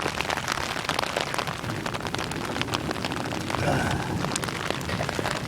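Steady rain falling, with many sharp, irregular drop ticks over a constant hiss.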